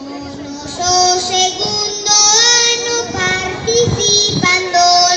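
A group of children singing together in unison, a Galician maio song, on long held notes that step from pitch to pitch; the singing is softer for the first second, then swells louder.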